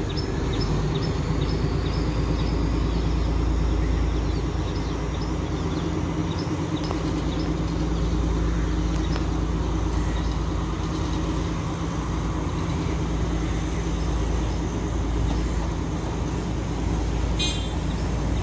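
Steady low engine drone with a continuous rumble of traffic-like noise. Faint regular ticking sounds during the first part, and a short rattling click comes near the end.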